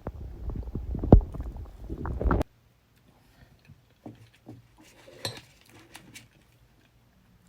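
Human stomach and intestines gurgling, recorded close to the belly: a dense run of bubbling gurgles, rumbles and pops with one sharp loud pop about a second in. These are digestion sounds after a meal. The gurgling cuts off abruptly about two and a half seconds in, leaving only faint scattered clicks and soft gurgles.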